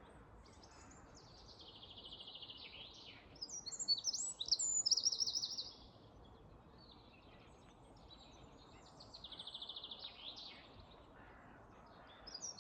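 Wild songbirds singing: two song phrases about six seconds apart, each a fast high trill followed by a burst of higher notes.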